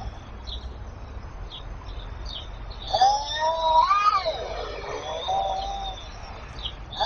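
A cat gives one long meow that rises and falls, about three seconds in, followed by a shorter call. Small birds chirp repeatedly behind it.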